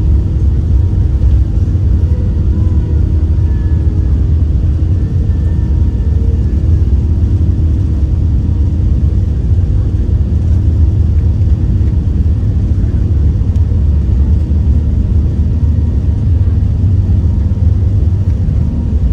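Steady low rumble of an Airbus A380's engines and airflow heard from inside the passenger cabin.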